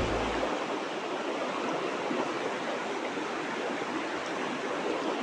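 River water rushing steadily over rocks, an even noise with no breaks. The last of a music track ends about half a second in.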